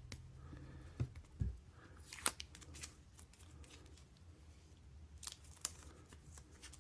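Protective plastic film being peeled off the back of a watch case: faint crinkling and tearing rustles with a few short clicks.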